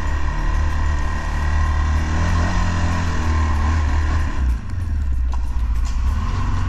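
CFMOTO CForce 600 ATV's single-cylinder engine running while plowing snow with its front blade, its pitch rising and falling with the throttle, with a brief drop about four and a half seconds in.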